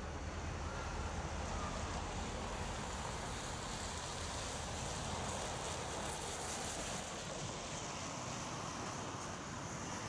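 Central Railroad of New Jersey No. 113, a 0-6-0 steam locomotive, and its train heard at a distance as a steady rushing rumble with no clear beat.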